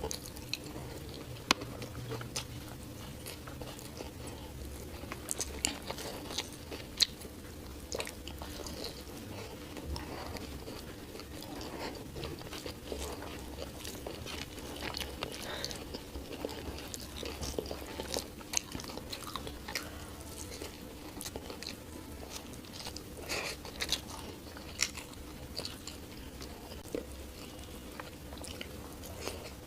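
A person eating close to the microphone: chewing and biting with frequent small crunches and wet mouth clicks, over a steady low hum.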